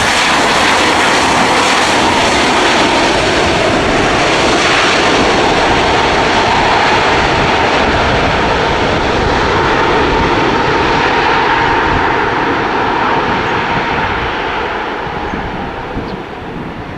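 Boeing 737 MAX 9 jet airliner's CFM LEAP-1B turbofans running loud as it lands, with a steady whine over the engine noise, fading away near the end.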